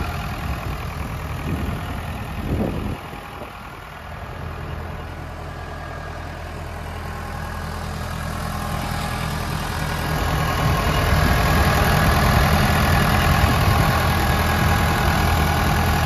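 Case 580L backhoe loader's four-cylinder diesel engine idling steadily. It grows fainter about three seconds in and louder again from about ten seconds.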